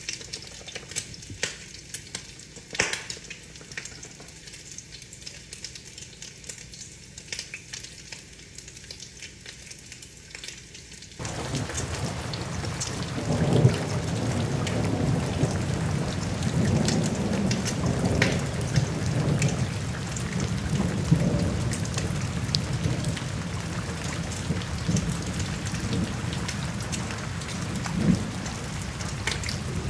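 Rain on a window: light rain with scattered drops ticking against the glass, then about eleven seconds in it switches abruptly to louder, heavier rain with a low rumble of thunder.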